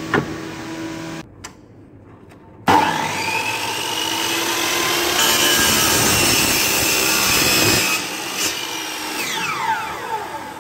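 DCA AJX 255 miter saw switched on, its motor whining up to speed a few seconds in. The 255 mm blade then cuts through a wooden board for about three seconds, and the motor is switched off near the end, winding down with a falling whine.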